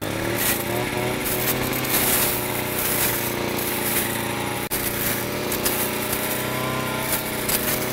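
Wild Badger 52cc two-stroke brush cutter running steadily while cutting through tall brush, with a sudden brief drop-out just past halfway.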